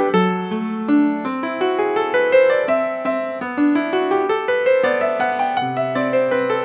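Piano playing a slow, flowing melody over chords, notes sounding several times a second with no gaps.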